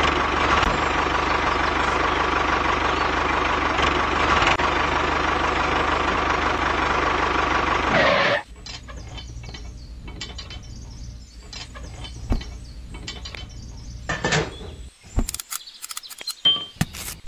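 A small motor runs steadily with a constant whine and a low hum, then stops suddenly about eight seconds in. Scattered clicks and knocks follow, with a few sharp, louder knocks near the end.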